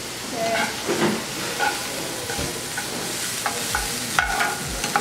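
Carrots frying in oil in a pan, sizzling steadily, stirred with a spatula. From about two seconds in, the spatula scrapes and knocks against the pan about twice a second.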